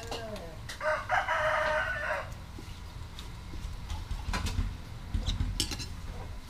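A rooster crows once, about a second in, holding the call for over a second. Light clinks of chopsticks against a bowl follow.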